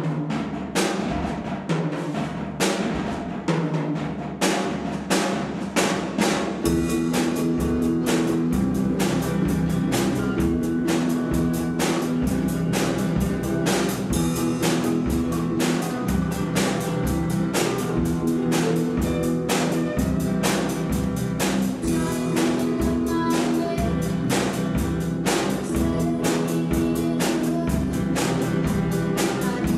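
Rock band with drum kit, electric guitars and electric bass playing. For about the first six seconds the drums play a break of separate, spaced hits, then the full band comes in and plays on at a steady, driving beat.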